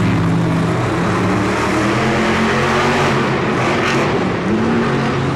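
Grave Digger monster truck's supercharged V8 running loud and revving as it drives through the dirt, the engine pitch shifting and rising a little past four seconds in.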